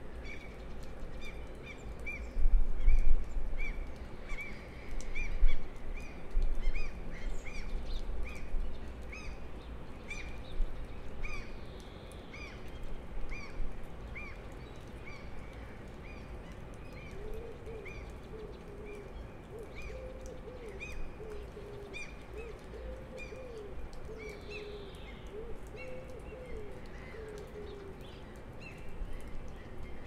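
Morning birdsong: a small bird repeats a short chirp over and over, about one to two a second, with other birds calling faintly. A little past halfway a pigeon starts cooing steadily. Bursts of low rumble are loudest in the first several seconds.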